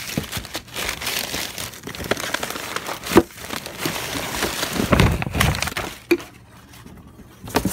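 Crumpled newspaper packing rustling and crackling as hands dig through a cardboard box, with a sharp knock about three seconds in and a heavier thump around five seconds as a part is lifted out.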